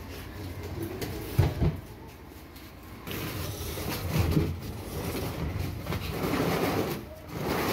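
Large empty plastic water tank being shifted by hand across the floor: two hollow knocks about a second and a half in, then a rough scraping rumble that comes and goes as the tank is dragged and turned on its base.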